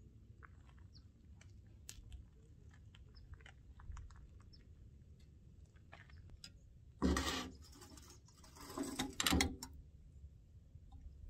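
Light clicks and taps of a spoon, bowl and jar being handled during a meal at a table, with two louder noisy handling sounds about seven seconds in and again around nine seconds.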